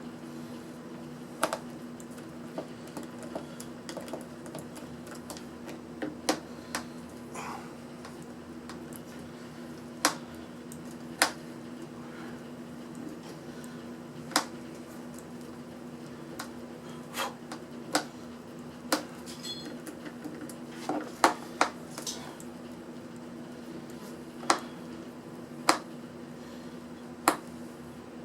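Scattered sharp clicks and taps of a screwdriver and loose screws against the hard plastic case of a portable jump-starter power pack being taken apart, about one every second or two, over a steady low hum.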